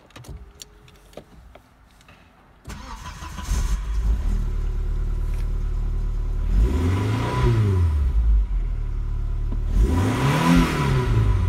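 A few clicks, then the Audi 80 B4's 2.0-litre ABK four-cylinder engine starts about two and a half seconds in, with the coolant gauge still at its lowest. It settles to an idle of about 1000 rpm and is revved twice, each rev rising and falling over about a second and a half.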